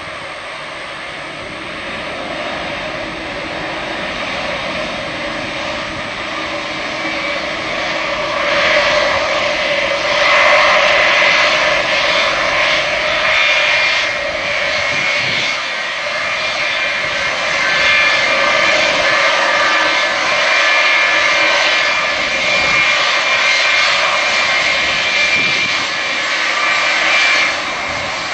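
Boeing 707-331B(KC) tanker's four Pratt & Whitney JT3D turbofans at taxi power, a steady rushing sound with a high whine on top. It grows louder over the first ten seconds or so as the aircraft taxis closer, then holds.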